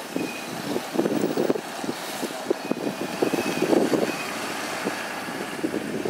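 Road traffic: a route bus turning through an intersection and driving off, with a utility vehicle and a car passing close by, a steady mix of engine and tyre noise.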